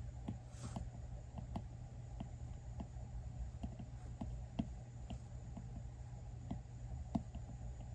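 Apple Pencil 2's plastic tip tapping and sliding on an iPad Pro's glass screen while sketching: light, irregular clicks several times a second.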